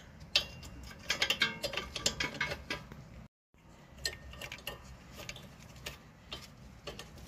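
Light clicks and small metal clinks from a gloved hand fitting an ABS sensor wire and its clip back onto a car's brake hose bracket at the front steering knuckle. The clicks are busiest in the first few seconds, cut out briefly near the middle, and are sparser after that.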